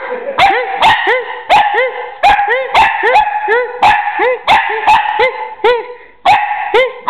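Puppy barking over and over at a plush toy being waved at it: short, high-pitched barks, about two a second.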